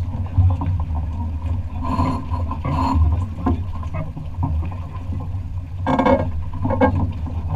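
Wind buffeting the microphone of a camera on a sailing yacht's bow: a steady low rumble, with a few short louder noises about two, three and six seconds in.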